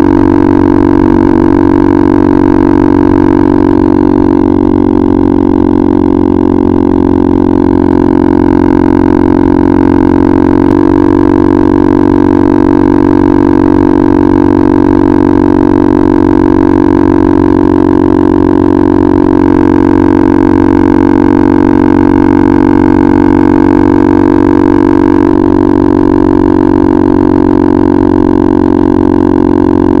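KTM RC 390's single-cylinder engine and Akrapovic exhaust droning at a steady cruising speed, very loud and close to the microphone.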